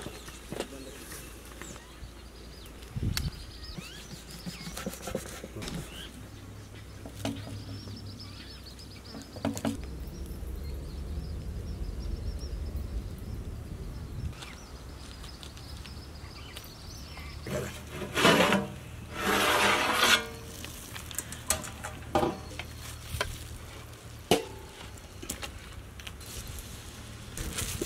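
Cooking over a wood fire: a large metal pot of potatoes boiling and steaming, with scattered knocks and scrapes of a metal skimmer against the pot. There are two loud bursts of scraping a little past halfway.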